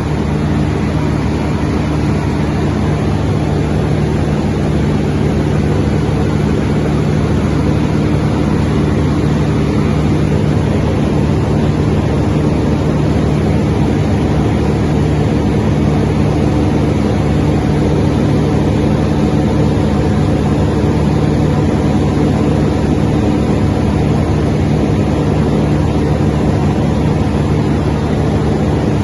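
200 kVA FG Wilson diesel generator running steadily at constant speed, a low engine drone.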